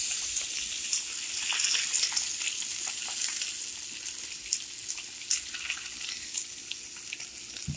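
Tilapia fillets sizzling on a hot grill as lemon juice is squeezed over them: a steady hiss with many scattered crackles and pops, easing off slightly toward the end.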